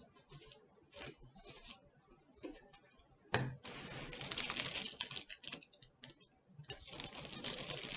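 A paintbrush stroking glue along a book's page edges in short soft strokes, then a thump about three and a half seconds in. After it, stiff wax paper crinkles and rustles as it is handled and smoothed around the book, in two long stretches.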